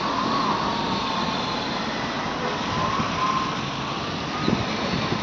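Road traffic: cars driving past, a steady rush of noise with a faint wavering whine over it.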